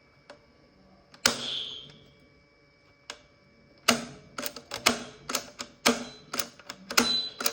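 A single sharp click with a short hiss after it, then from about four seconds in a steady run of sharp clicks or taps, about two a second.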